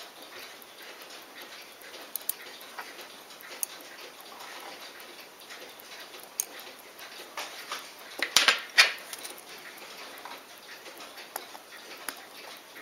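Light clicks and taps of steel watchmaker's tweezers and a screwdriver on a Poljot Signal watch movement as a small screw is set into a bridge. About eight seconds in there is a denser burst of louder, scratchy clicks.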